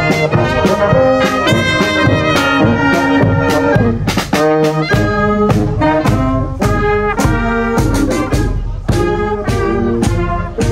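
Marching brass band playing a tune with trumpets and low brass, over a steady drum beat.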